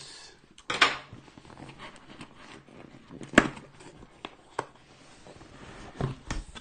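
Hands handling and opening a cardboard microphone box: a short scrape just under a second in, then a few sharp taps and knocks of cardboard, the loudest about three and a half seconds in, with faint rustling between.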